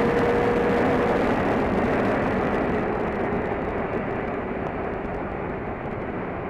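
Sport bike at highway speed, heard from the rider's helmet: wind rushing over the microphone with the engine running beneath it. A steady engine tone fades out about a second in, and the whole sound gradually gets quieter.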